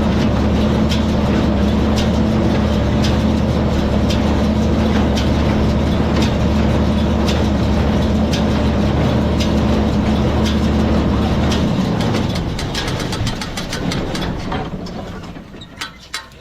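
Tractor engine running steadily, with a regular tick about once a second. About twelve seconds in, the engine sound stops and the level dies away over the next few seconds, leaving scattered clicks.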